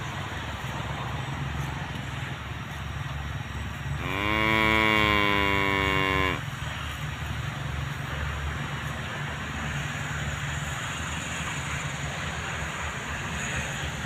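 A cow moos once, a single call of a little over two seconds starting about four seconds in, over a steady background hiss and low rumble.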